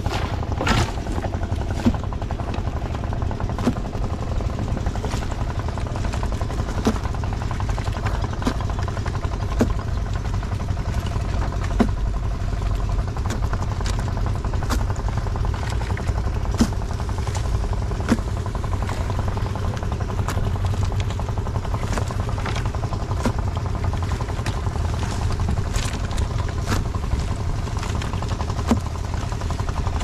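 A small engine drones steadily at a low idle throughout. Over it come scattered clicks and knocks of live crawfish and a trap being handled in a plastic crate.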